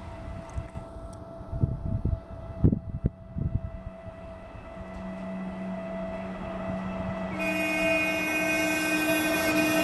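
Vehicle traffic running, with a few low thumps in the first few seconds. About seven seconds in, a loud multi-tone horn sounds and holds.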